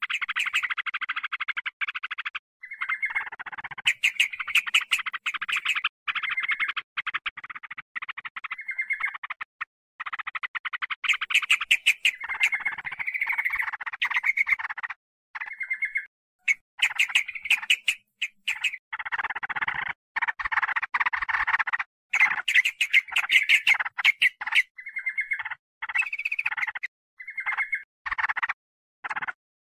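Yellow-vented bulbul (trucukan) lure recording: dense, rapid, harsh chattering calls in bursts of one to three seconds, broken by short gaps, with sharp high clicks among them.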